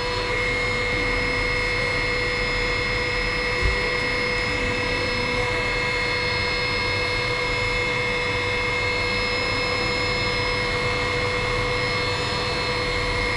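MD-530F helicopter heard from inside the cockpit in flight during a practice autorotation: its turboshaft engine and rotor give a steady whine over a rush of air, with no change in pitch. There is one brief knock a few seconds in.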